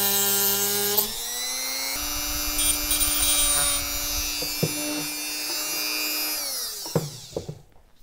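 Small handheld rotary tool with a diamond cut-off wheel, running with a steady whine, then cutting the mounting tabs of a motorized-bike generator coil with a rougher hiss from about two seconds in. Near the end it winds down and stops.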